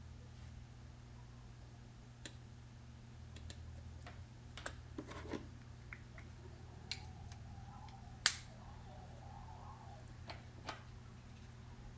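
About a dozen faint, scattered clicks and taps of small plastic gear being handled, the sharpest a little past the middle, over a steady low hum.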